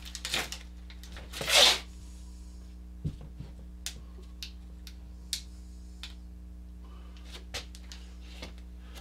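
Sticker and paper handling: a short loud rustle about a second and a half in, then faint scattered clicks and taps. A steady low hum runs underneath.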